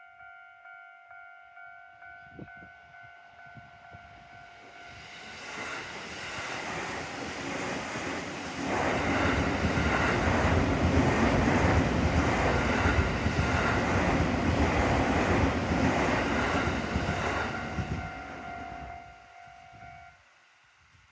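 Japanese level crossing's electronic alarm bell ringing in steady pulses while a Rinkai Line 70-000 series electric train passes, its wheels clattering rhythmically over the rail joints. The train noise builds over several seconds, is loudest for about eight seconds, then fades, and the alarm stops shortly before the end.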